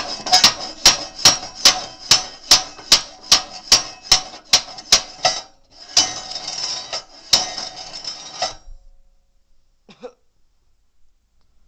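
Breckwell pellet stove's heat-exchanger cleaning bar being shaken back and forth, metal knocking on metal about two or three times a second, to knock soot off the heat exchange tubes. After about five seconds it turns into a scraping rattle with a few more knocks, and it stops about eight and a half seconds in.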